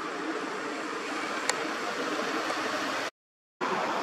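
Steady rushing background noise with no clear source. It is broken by a single sharp click about a second and a half in, and drops to dead silence for half a second about three seconds in before it resumes.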